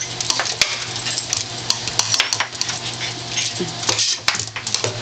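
Air hockey table with its air blower running as a steady hum and hiss, and irregular hard plastic clacks and knocks on the table as a dog plays with the puck.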